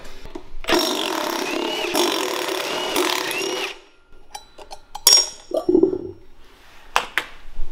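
Cordless impact driver with a 10 mm socket hammering out the rear sprocket bolts of a mini bike wheel in one run of about three seconds. Scattered metal clicks and clinks follow as the bolts and sprocket come off the hub.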